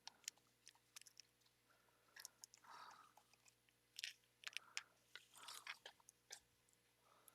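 Faint handling noises of small plastic parts and a small plastic baggie: scattered light clicks with a few soft crinkles, the clearest about three seconds in and about five and a half seconds in.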